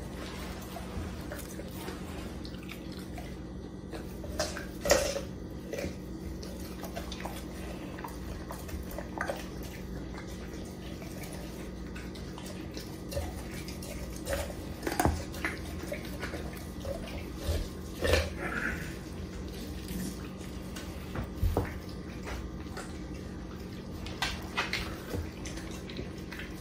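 A pit bull-type dog licking and gnawing at a whole raw chicken, with scattered sharp clicks and knocks as it mouths the carcass, the loudest about 5, 15 and 18 seconds in.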